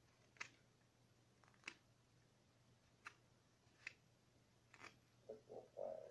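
Carving knife slicing wood in short strokes: about five quiet, sharp snicks roughly a second apart. A brief low stuttering sound comes near the end.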